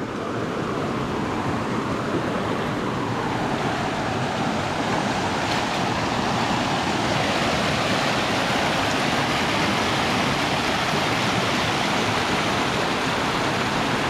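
Steady rushing of water from a small waterfall cascading over rocks into a shallow stream, growing a little louder in the first few seconds.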